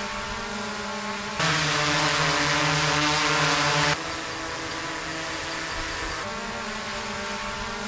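Hovering DJI drones' propeller hum in quickly spliced clips, each cut switching the sound abruptly: the DJI Air 2S, then about a second and a half in a clearly louder drone hum, then the DJI Mavic 3 from about four seconds in, then a change again near the end.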